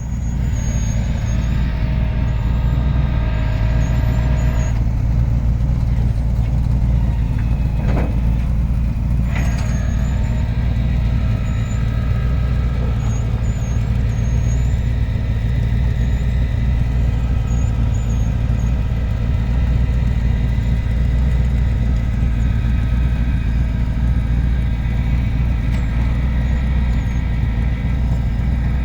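1989 Lincoln Town Car's 5.0-litre V8 running steadily with a low, even drone, with an exhaust leak that needs fixing. A couple of short, sharp noises cut in around eight to ten seconds in.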